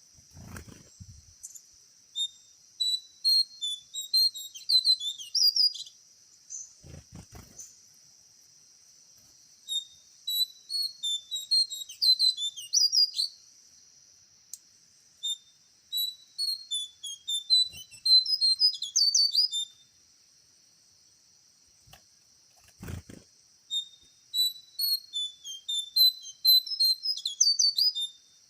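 A songbird singing in four runs of rapid, high chirps and whistles, each run lasting a few seconds with short pauses between. Under it runs a steady high drone of insects. Three dull low thumps fall near the start, about seven seconds in and about twenty-three seconds in.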